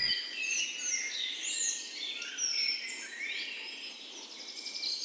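Several songbirds singing and chirping over one another: short, overlapping whistles and trills that rise and fall in pitch, over a faint outdoor hiss.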